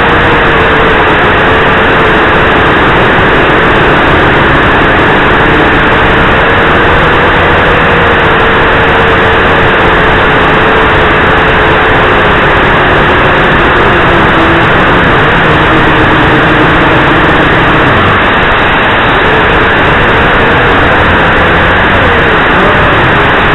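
Heli-Max 230SI quadcopter's motors and propellers whirring, heard loud and close through its onboard camera microphone. It is a steady drone with a hum whose pitch drifts and wavers as the throttle changes.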